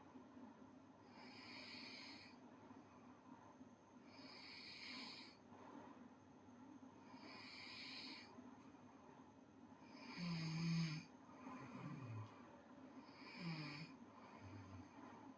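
A girl snoring softly in her sleep, a breath about every three seconds. A louder, lower-pitched snore comes about two-thirds of the way in, and another shortly after.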